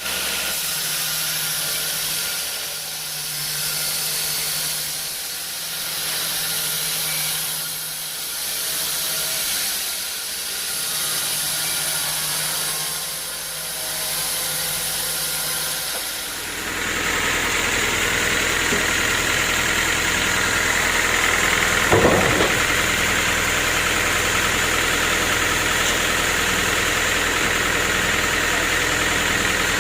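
Sawmill machinery running. At first a hiss swells and fades about every two and a half seconds over a low hum. About halfway through it gives way to a louder, steady machine drone, with one short knock a little later.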